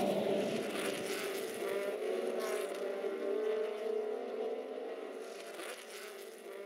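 Racing car engines running, a steady engine note that fades gradually.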